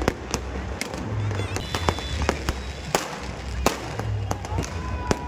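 Firecrackers going off in many sharp, irregular cracks, several a second, over music with a deep pulsing bass.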